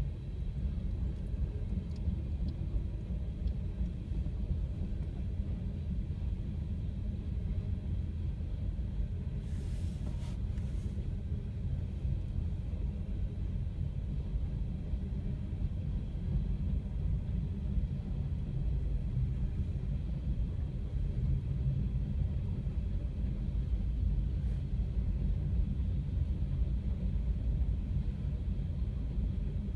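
Low, steady rumble of a train passing a railroad crossing, heard from a car waiting at the lowered gate, with a short hiss about ten seconds in.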